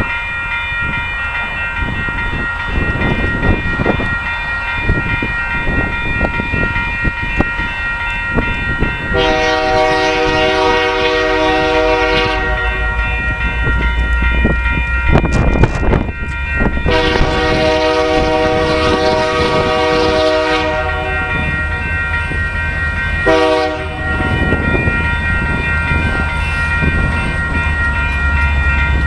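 Union Pacific locomotive air horn sounding the grade-crossing signal: two long blasts, one short, and the start of a final long one near the end. Under it runs the steady rumble and wheel clatter of the train on the rails, with a high, steady ringing tone throughout.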